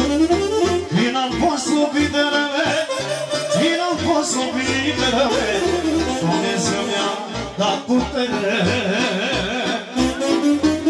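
Instrumental break of a Romanian party song: an accordion lead plays fast, ornamented runs over a steady bass beat.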